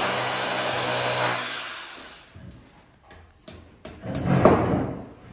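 Cordless drill running as it bores into a plastered wall, then winding down about a second and a half in. A few sharp knocks follow, and a louder hammer knock comes near the end.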